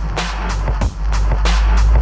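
Hip-hop backing music with a heavy bass line and a steady drum beat.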